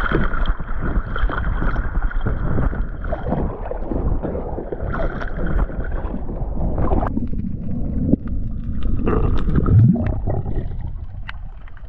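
Sea water sloshing and splashing around a camera at the surface beside a dive float. About seven seconds in the sound goes dull and muffled as the camera goes under water, with a few sharp clicks.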